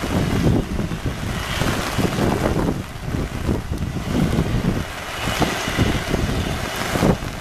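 Gusty wind buffeting the camera microphone in uneven low surges, over a steady hiss of heavy rain.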